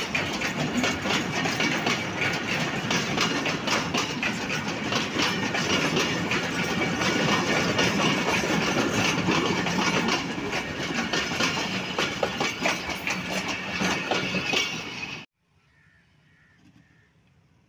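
Freight train of oil tank wagons rolling past close by, the steel wheels clattering and clicking over the rail joints. The sound cuts off suddenly about fifteen seconds in, leaving faint quiet.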